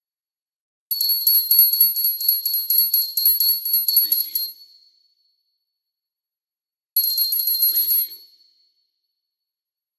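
Small brass bell rung rapidly, several strokes a second, with a high, clear ring. It comes in two bursts: a long one of about three and a half seconds, then a short one of about a second, each ringing on briefly after the strokes stop.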